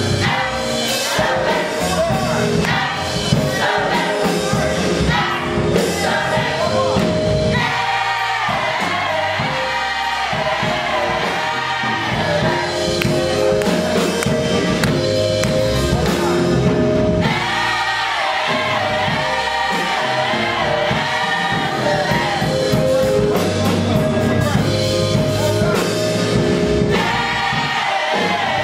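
Gospel choir singing a song together, voices sustaining held notes.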